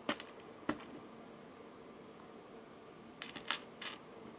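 Quiet room tone with a few small, sharp clicks: two in the first second and a short cluster of clicks a little past three seconds in.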